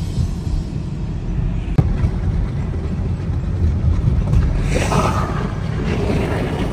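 Steady low rumble of a car driving on a snowy, slushy road, heard from inside the cabin, with a single sharp click about two seconds in.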